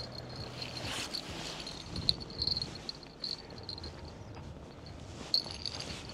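Small bite-alarm bells on a bottom fishing rod jingling faintly with a thin, high ring that swells and fades as they are put on the rod, with a couple of sharp clicks about two seconds in and again near the end.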